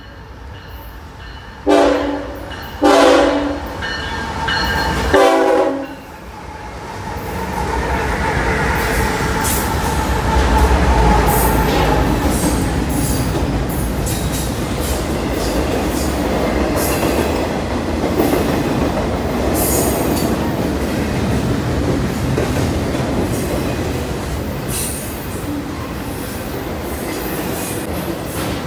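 BNSF freight locomotive's multi-tone air horn sounding three blasts, the loudest sounds here. An intermodal double-stack freight train then rolls past, a steady loud rumble with high-pitched wheel-on-rail noise.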